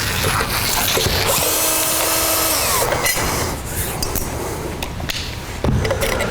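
Cordless drill/driver running briefly to back out the screws of the brush cover plate on a floor edger's motor, a steady whine for about a second, with clicks and knocks of tool handling around it.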